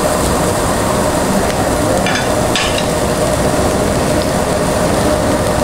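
Pork sizzling on a perforated steel grill plate over charcoal, a steady frying hiss, with two short clicks about two seconds in.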